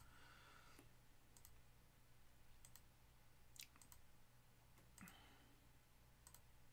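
Faint computer mouse clicks a second or more apart, some in quick pairs, over a low steady hum.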